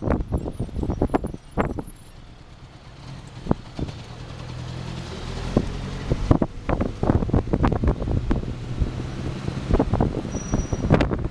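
Car driving, with wind buffeting the microphone in irregular thumps and a vehicle engine's low hum swelling in the middle.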